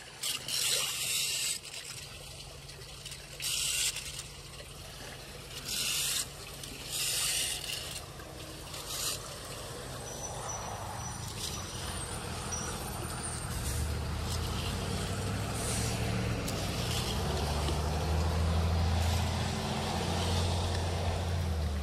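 Several short scrapes of a small rake through wet leaf muck over running water, then a vehicle engine hum that grows steadily louder from about halfway through as it approaches.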